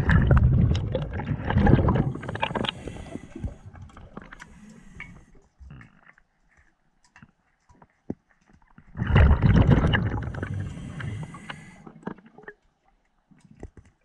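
Scuba diver's exhaled bubbles from the regulator, heard underwater: two bursts of bubbling, each two to three seconds long and about nine seconds apart, with a few faint ticks between.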